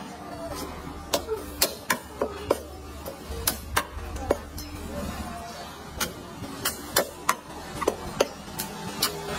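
Knife chopping on a cutting board: a run of sharp, irregularly spaced knocks, a dozen or more, over a low steady background hum.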